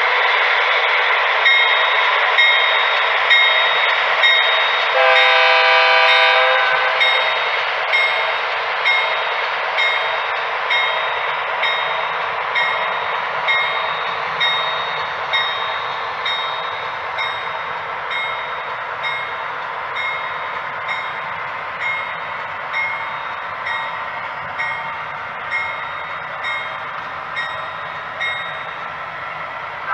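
HO-scale model train sound: a grade-crossing bell dings steadily, about once every 0.7 seconds, over the steady running noise of the passing train. A diesel locomotive horn sounds once about five seconds in, for under two seconds.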